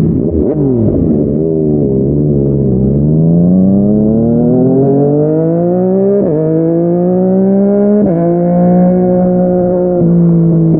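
Yamaha MT-09's three-cylinder engine through a Yoshimura R55 slip-on exhaust. It drops in pitch briefly, then pulls hard with rising revs. The revs drop sharply at two upshifts, about 6 and 8 seconds in, then the bike settles into a near-steady cruise that eases off slightly near the end.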